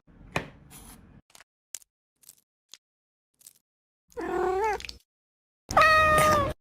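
A few faint clicks, then a cat meowing twice: a short meow that bends in pitch, and a second, steadier one that falls slightly at the end.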